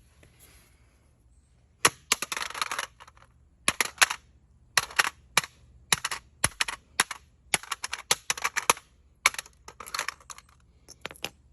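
A hammer striking a plastic smoke alarm again and again: sharp, irregular knocks begin about two seconds in, some in quick clusters with crackling between blows.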